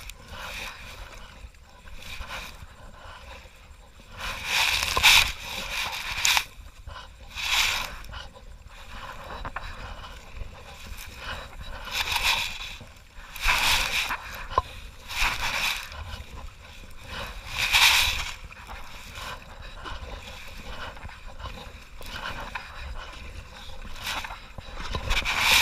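Kayak paddle blades dipping and splashing in shallow river water, a stroke every few seconds at an uneven pace, sometimes two close together, over a steady low rumble.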